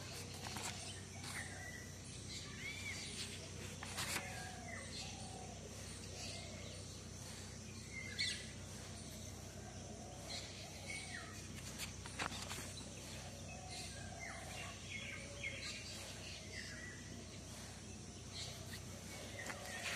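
Pages of a spiral-bound paper notebook being turned, a brief rustle about every four seconds, over short bird chirps in the background and a low steady hum.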